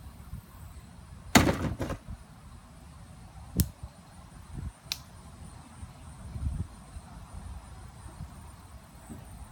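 Knocks from a long stick that a small child is swinging and banging about: one loud sharp knock with a short rattle after it about one and a half seconds in, then two lighter clicks a few seconds later.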